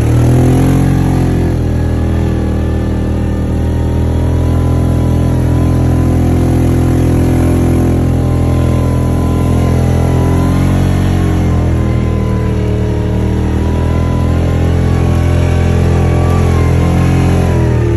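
Side-by-side UTV engine running as the machine drives through snow, its pitch climbing in the first second, then holding fairly steady with small rises and falls of the throttle.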